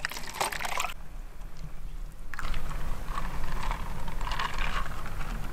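Coffee poured from a plastic bottle into a plastic cup, splashing for about a second. About two seconds in, a louder steady noise with a low rumble takes over.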